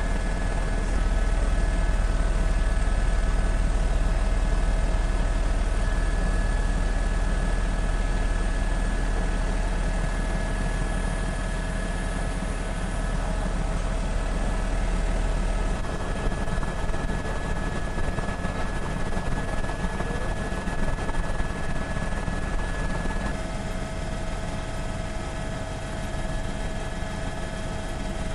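Steady helicopter engine and rotor drone, heard from aboard, with a constant whine over a deep rumble. The rumble eases a little past halfway.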